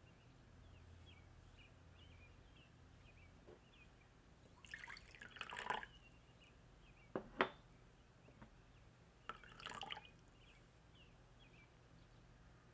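Water poured into a small glass bowl of saffron threads, then two light glass clinks, then a second, shorter pour of rose water. Faint bird chirps in the background.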